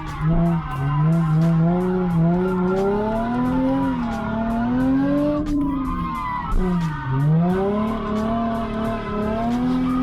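Nissan 350Z's naturally aspirated 3.5-litre V6, on its 3.5 final drive, revving up and down hard while drifting, with tyres skidding. The revs fall sharply about seven seconds in and climb again.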